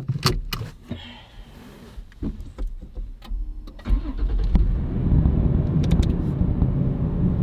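Sharp clicks of a seatbelt being buckled, then the 5th-gen Toyota 4Runner's engine starts about four seconds in and settles into a steady idle, heard from inside the cabin.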